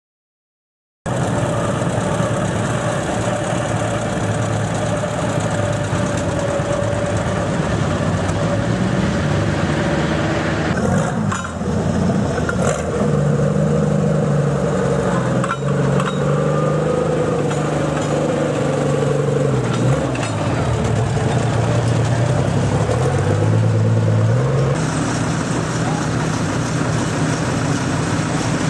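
Pulling-tractor engines running at a tractor pull, the pitch stepping up and down several times as the engines are revved. People talk in the background.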